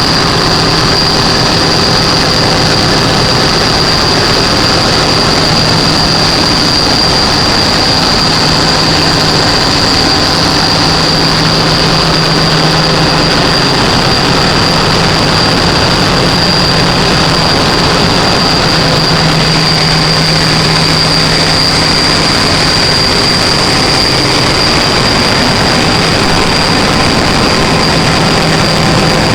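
Gas-engine generator running at a steady speed: a loud, constant engine drone with a steady high-pitched whine above it.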